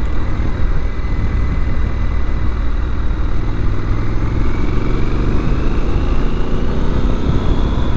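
Triumph Scrambler 1200 XC's 1,200 cc parallel-twin engine running as the motorcycle rides along, with a steady low rumble; from about halfway through, the engine's pitch rises steadily as the bike accelerates.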